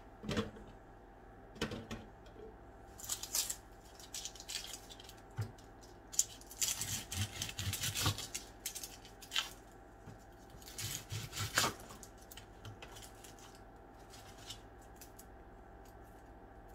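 Dry yellow onion skins crackling as an onion is peeled by hand and with a kitchen knife, in short scattered bursts with a longer run of crackling and cutting about halfway through.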